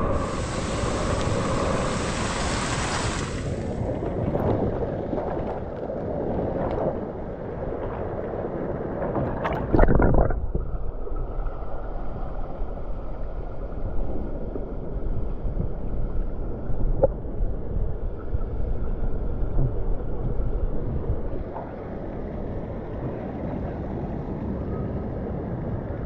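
Water heard by a camera riding the current of a fast-moving lazy river: at first the hiss of spray from a water jet splashing down, then a loud splash about ten seconds in as the camera goes under, after which the water becomes a muffled rumble.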